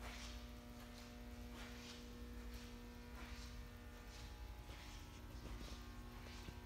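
Faint steady electrical mains hum, with soft footsteps scuffing on a concrete floor about once every second.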